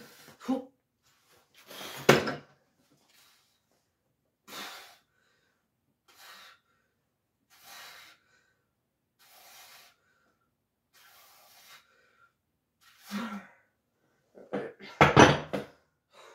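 Hard breathing from a lifter doing dumbbell bench presses: a sharp exhale on each rep, about every one and a half to two seconds. Near the end comes a loud, heavy metallic clatter as the cast-iron dumbbells are put down.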